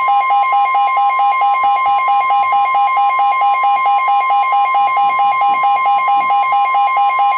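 Emergency alert attention tone: a loud steady high tone with a second, lower tone pulsing about five times a second under it. It is the signal that opens an emergency broadcast, here a tornado warning.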